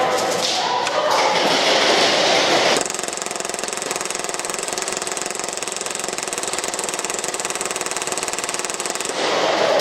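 Action Army AAP-01 gas blowback airsoft pistol firing on full auto: a fast, continuous rattle of shots and slide cycling for about six seconds, stopping about nine seconds in. It is preceded by a louder burst of noise in the first three seconds.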